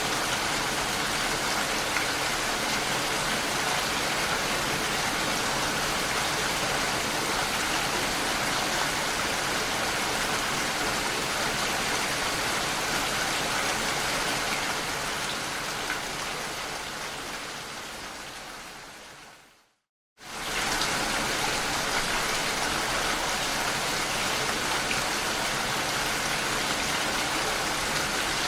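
Steady rain hitting a window pane. About two-thirds of the way through it fades out to a moment of silence, then starts again suddenly at full level, like a looped recording restarting.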